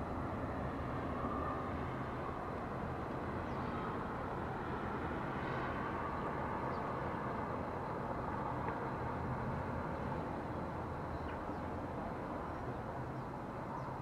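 Steady outdoor town ambience: a low, even rumble like distant traffic.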